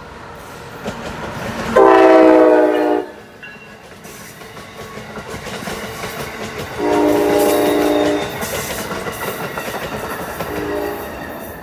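Amtrak ACS-64 electric locomotive's multi-note horn sounding as the train passes at speed: two long blasts about five seconds apart and a short one near the end, over the rumble and rail clatter of the passing coaches.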